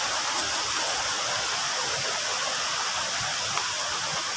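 Fast-flowing stream water rushing steadily in a constant, even roar.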